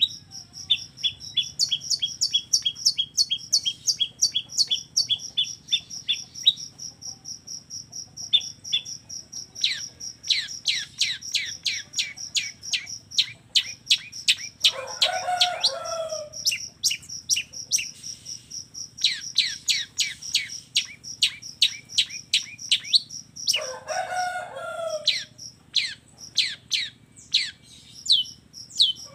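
Long-tailed shrike (cendet) singing: fast runs of short, sharp chirps over a steady, high trill. Twice a lower call of about a second and a half cuts in among the notes, the kind of mimicked fill-in these shrikes mix into their song.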